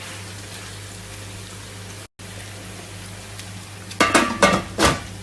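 Chicken pieces frying in a pot with onion, garlic and spices, a steady sizzle. About four seconds in, a few loud sharp clattering knocks with a short metallic ring.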